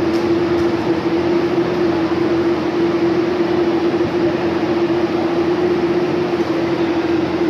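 Steady machine hum holding one pitch over a constant rushing noise, without a break: fans running.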